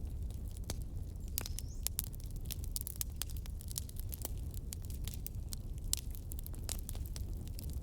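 Wood fire in a fireplace crackling: irregular sharp pops and snaps of varying loudness over a steady low rumble.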